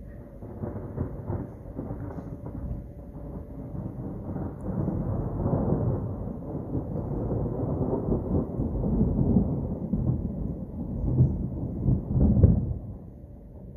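A long roll of thunder, rumbling and building through the middle to two louder peaks near the end, then fading away.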